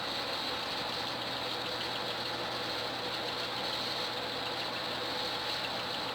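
Homemade lathe running steadily with a constant motor hum. A faint, light regular ticking comes in about halfway through.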